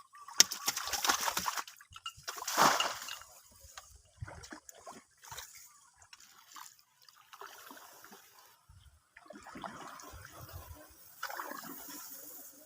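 Water splashing and sloshing as a fish trap is handled in the water, loudest in two bursts in the first three seconds, then lighter, irregular splashes.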